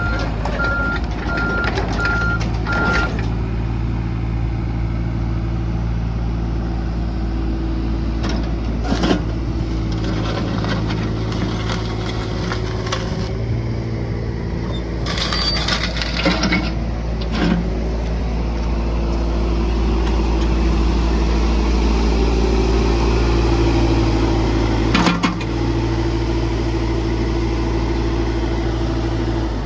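Yanmar diesel engine of a Komatsu PC30MR-5 mini excavator running steadily, with a regular beeping alarm that stops about three seconds in. A few short clanks come through over the engine.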